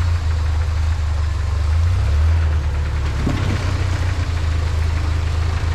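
Lifted Toyota pickup's engine running at low revs as it crawls over rocks, a steady low drone that rises slightly about two seconds in.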